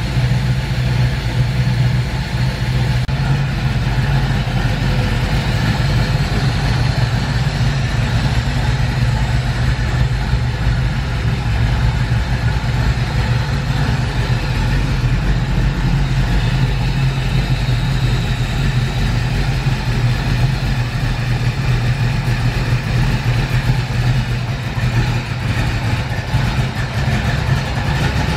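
Freshly rebuilt 351 Windsor (5.8 L small-block Ford V8) idling steadily, an even low rumble with no revving.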